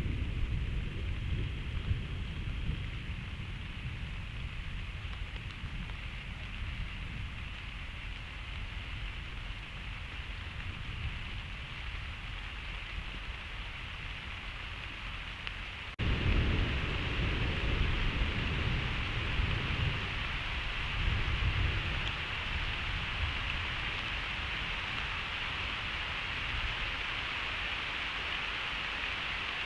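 Thunderstorm heard through a trail camera's microphone: steady rain hiss with low thunder rumbling and fading over the first few seconds. After an abrupt change about halfway, a louder roll of thunder rumbles for several seconds before settling back to the rain.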